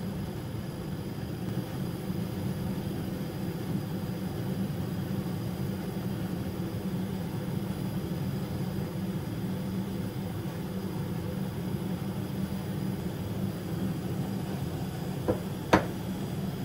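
Steady low background hum, with two sharp clacks near the end, the second louder, as the wooden gnocchi board is set down on the steel counter.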